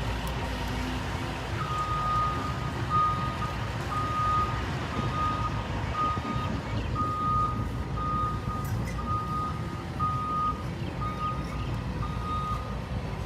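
Backup alarm on a piece of heavy construction equipment, beeping about once a second over a steady low engine rumble. The beeping starts a second or two in and stops just before the end.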